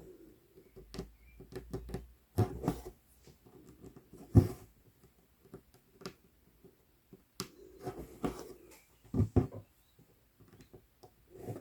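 Cross-stitching on 11-count Aida: a tapestry needle pokes through the stiff cloth in irregular taps, and the floss is drawn through in short rustles.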